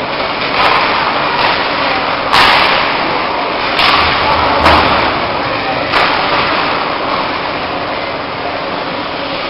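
Ice hockey play: skates scraping on the ice over a steady crowd murmur, with sharp clacks of sticks and puck several times, the loudest about two and a half seconds in.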